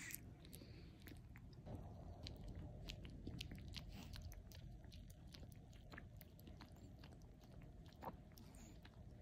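A long-haired chihuahua licking and chewing food off a metal spoon: faint, irregular little clicks and smacks of his mouth.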